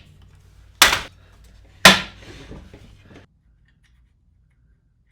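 Two sharp knocks about a second apart, each ringing out briefly; no steady motor sound runs between them.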